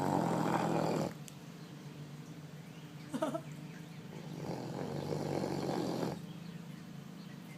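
Cane Corso dog snoring in its sleep: two long snores about four seconds apart, the first ending about a second in, the second from about four and a half to six seconds, with a short squeaky sound near three seconds.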